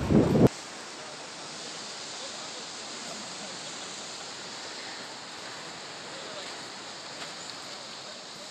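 A fast river rushing with a steady, even noise. It opens with a loud low rumble that cuts off abruptly about half a second in.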